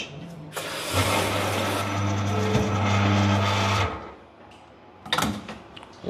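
Spring lever espresso machine purging its group head: water hissing out of the group with a steady hum for about three seconds, then cutting off. A few short clicks near the end.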